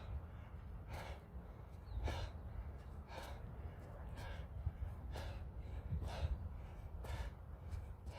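A man breathing hard and rhythmically during a fast plank-hop exercise, with a sharp exhale or gasp about once a second.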